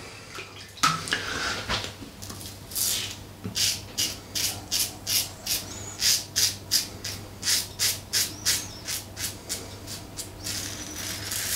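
Double-edge safety razor (Alpha Shaving Works Outlaw Evolution, stainless steel) scraping through lathered stubble on the jaw and neck: a run of short, quick strokes, about two a second.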